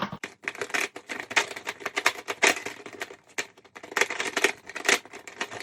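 A giant plastic Rubik's cube being turned by hand: rapid, irregular clicking and clacking of its layers, with louder clusters of clicks every second or so.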